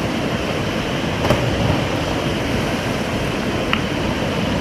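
Steady rush of river water pouring over a small waterfall, an even hiss-and-roar.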